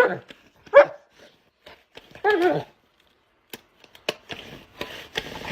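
A dog vocalising in whining yowls: a short one about a second in and a longer, wavering one around two seconds in, followed by scattered clicks and soft rustling.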